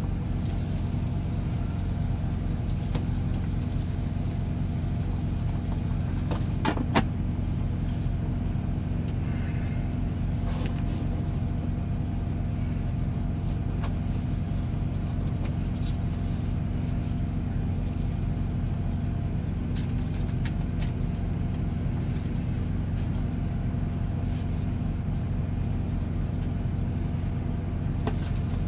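Steady low drone of a semi-truck's diesel engine idling, heard from inside the cab. There is a brief clatter about seven seconds in.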